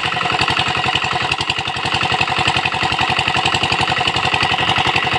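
Comet 5 HP single-cylinder diesel engine running steadily under load, driving a water pump, with a rapid, even exhaust beat. Water rushes from the pump's outlet pipe.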